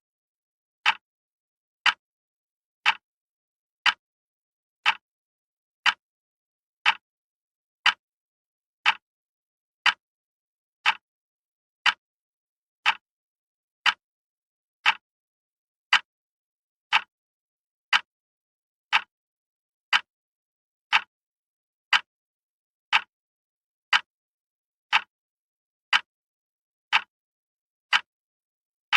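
Wall clock ticking steadily, one sharp tick a second with silence between the ticks.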